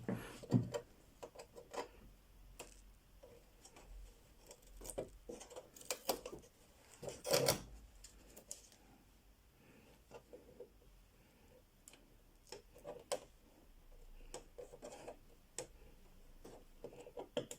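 Scattered clicks, taps and scrapes of hand tools and fingers working on a flat-screen TV's plastic casing as it is taken apart, with the loudest knocks about half a second in and about seven seconds in.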